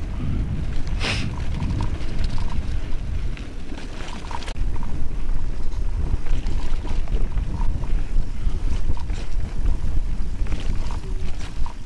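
Calibre Bossnut full-suspension mountain bike riding fast down a dirt singletrack: a steady low rumble of tyres and wind buffeting the microphone, broken by sharp knocks and rattles as the bike hits bumps, the strongest about a second in.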